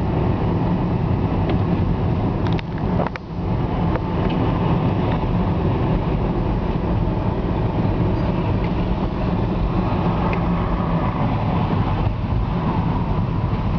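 Car interior noise while driving: a steady low engine and road rumble, heard from inside the cabin, with a few sharp clicks about three seconds in.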